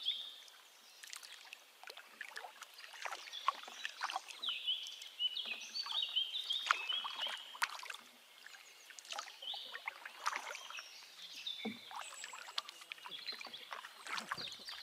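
Canoe paddling: irregular splashes and drips of water from the paddle strokes, with small sharp knocks.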